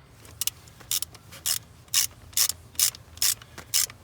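Hand ratchet wrench worked in short back-and-forth strokes, a quick burst of ratcheting clicks about twice a second, as a bolt is backed out.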